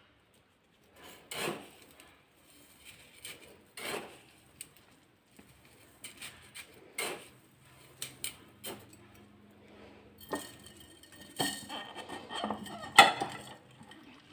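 Salt-packed lemon quarters being put into a jar and pressed down by hand, with scattered knocks and clinks against the jar. The knocks come faster and louder in the last few seconds.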